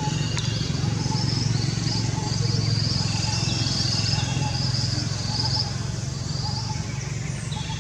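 A steady low engine hum that quietens about five and a half seconds in, with short high chirps repeating about twice a second over it.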